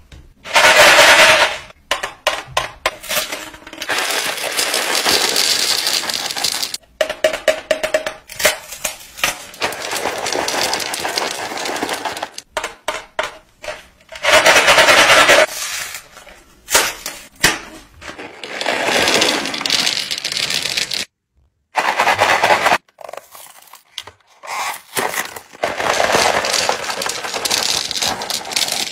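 Handfuls of small candies poured from cardboard boxes, clattering and rattling into a wooden bamboo tray. The candy boxes are handled and torn open. The sound comes in stretches of dense rattling of a second or a few seconds each, separated by brief pauses.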